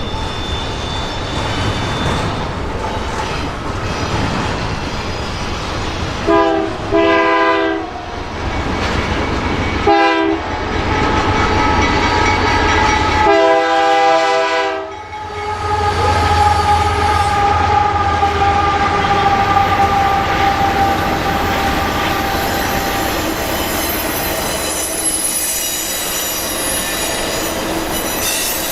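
Freight train passing through a level crossing. Its locomotive horn sounds the grade-crossing signal of two long blasts, a short one and a final long one, ending about halfway through, over the steady rumble of the train and the clickety-clack of rolling cars. Wheel squeal rises in the second half.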